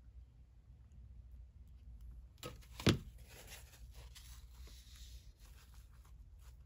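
A sharp paper rustle about three seconds in, then soft crinkling and rubbing as a tissue is pressed and dabbed over a freshly glued photo to blot the glue.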